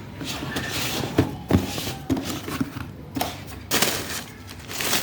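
Packaging being handled and opened: irregular rustling and crinkling with a few sharp knocks, the loudest about a second and a half in.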